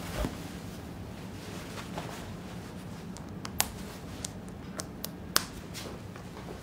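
Cloth rustling and a few small sharp clicks as a lab coat is pulled on and fastened, the two loudest clicks a couple of seconds apart, over a low steady room hum.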